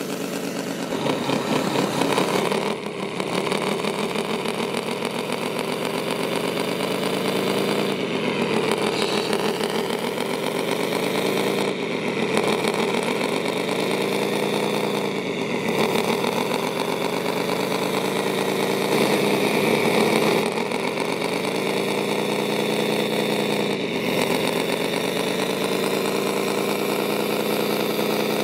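Radio-controlled scale tipper truck's electronic sound unit playing a simulated diesel truck engine. It runs steadily, its pitch dipping and climbing again several times as the truck drives, under a steady high whine.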